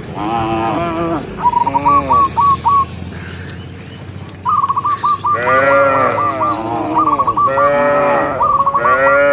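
Cattle mooing, several moos one after another with a quieter lull about three seconds in. Between and over the moos, runs of short high chirping notes repeat at about four or five a second.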